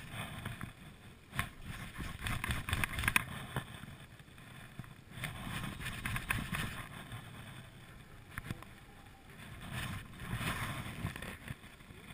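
River water running past, with wind buffeting the microphone and swelling near the end, and a couple of sharp knocks from the first few seconds.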